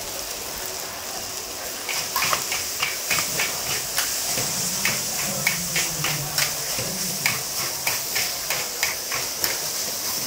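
Wok fried rice being stir-fried over a steady sizzling hiss. From about two seconds in, a metal ladle and spatula clank and scrape against the wok at about two to three strikes a second.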